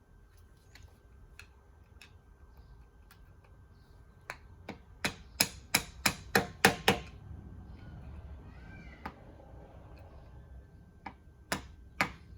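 Quick sharp hammer taps on metal, about three a second in a run of about nine, then another run starting near the end: the lock tabs of the U-joint bearing-cap retainers being tapped up against the bolts.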